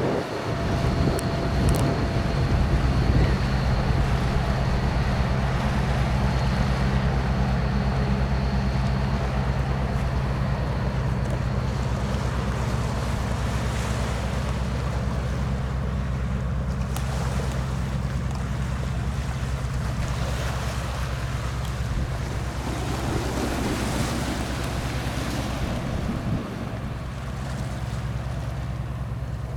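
A passing vessel's engine runs with a steady low drone over the rush of water and wind on the microphone. It eases slightly about three quarters of the way through.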